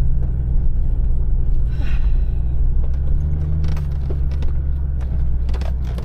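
Four-wheel-drive's engine running with a steady low drone, with a few knocks and rattles in the second half.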